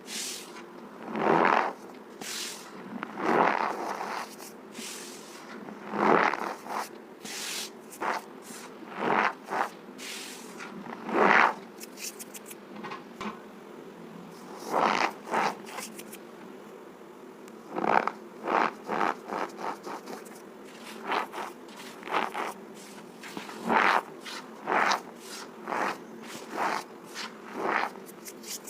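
Cornstarch being crushed, squeaking and crunching in short, irregular bursts, some single and some in quick runs of several.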